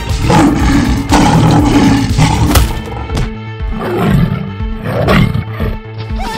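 Lion roar sound effects, two long loud roars, the second about four seconds in, over dramatic background music.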